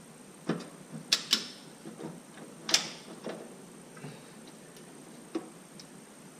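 A ratcheting torque wrench tightening 14 mm mount bolts, giving a few scattered sharp metal clicks, the loudest about a second in and just before three seconds.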